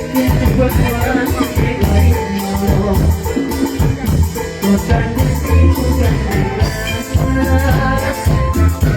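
Tropical cumbia music in an instrumental stretch without singing, with a steady beat of bass and percussion.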